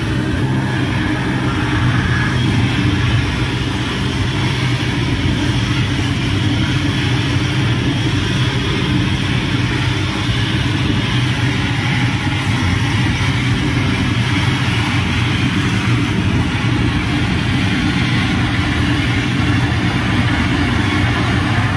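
Live harsh noise: a loud, unbroken wall of distorted electronic static over a heavy low hum, holding steady without breaks or changes.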